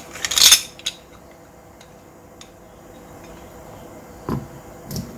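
Metallic clack of a Hi-Capa gas blowback pistol's slide and hammer cycling: a click, a short loud burst and a second click in the first second, then two light handling knocks near the end.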